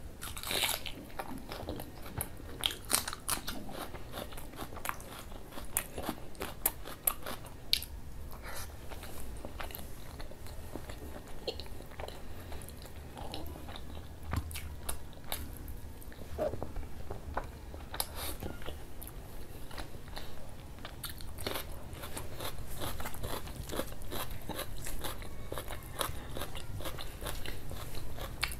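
A man chewing and biting into fried dal puri and curried mutton, with many irregular sharp crunches and clicks from the mouth.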